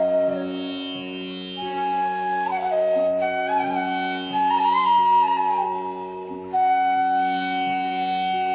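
Instrumental music in an Indian classical style: a melody of long held notes with gliding ornaments over a steady, unchanging drone.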